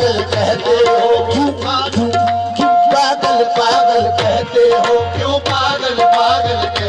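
Qawwali accompaniment with no voice: tabla playing a quick rhythm under long held harmonium notes.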